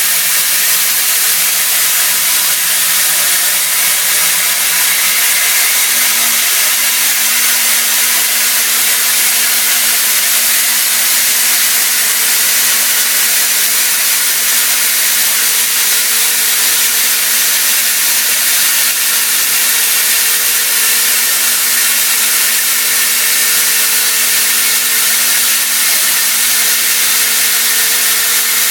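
Haas CNC mill cutting 30% silicon-carbide-reinforced aluminium (AlSiC) with a CVD diamond end mill under coolant: a steady loud hiss with a low, steady cutting tone that steps up in pitch about six seconds in.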